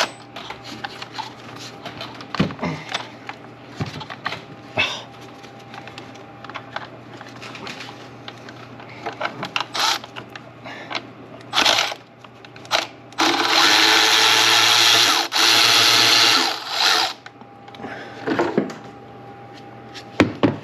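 Scattered clicks and knocks of tools against the engine, then a cordless power tool running in two short bursts and one long run of about three and a half seconds, briefly interrupted in the middle, as a bracket bolt is backed out.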